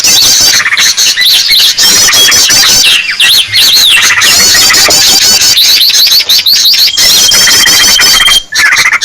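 Bird-lure call recording of many small birds chirping and trilling at once, a loud, dense and continuous tangle of high calls. Near the end one held whistle stands out briefly, followed by a short gap.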